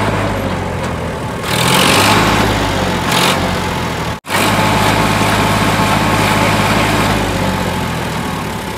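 Diesel engine of a stuck farm tractor running steadily, surging louder for about a second around a second and a half in and briefly again soon after. The sound cuts out for an instant near the middle.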